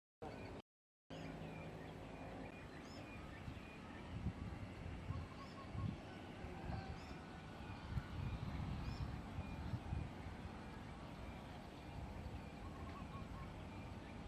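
Small birds chirping, short rising calls repeated about once a second, over irregular low rumbling. The sound cuts out briefly twice in the first second.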